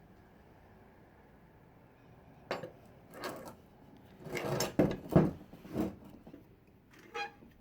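Knocks and clatter of metal tools or parts being handled on a workbench: quiet at first, then a run of separate clunks and rattles from about two and a half seconds in, with one more short knock near the end.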